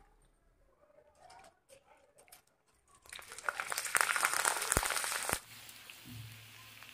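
Dried potato chips deep-frying in hot oil. After a few faint ticks, a loud burst of sizzling and crackling starts about three seconds in as the chips are stirred with a wire strainer, then falls to a low sizzle a couple of seconds later.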